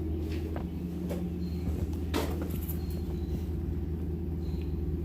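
Steady low mechanical hum, like a running motor or engine, with a single sharp knock about two seconds in.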